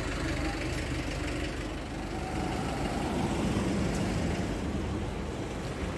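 Steady low rumble of road traffic on the street beside the promenade, with no single event standing out.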